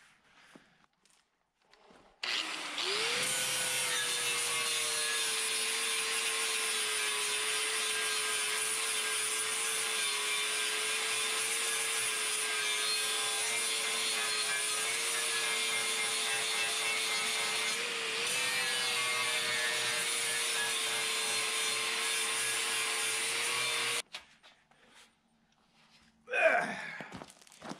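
Corded angle grinder spinning up with a rising whine, then grinding a welded steel frame at a steady pitch for about twenty seconds before it stops abruptly. Near the end a large steel sheet is handled, making a few loud rattles.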